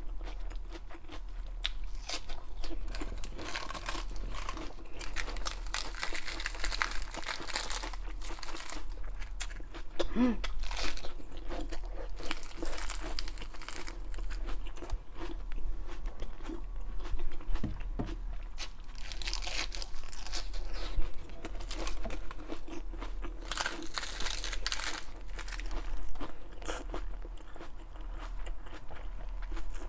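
Raw iceberg lettuce bitten and chewed close to the microphone: crisp crunching in repeated bouts of louder bites between stretches of chewing.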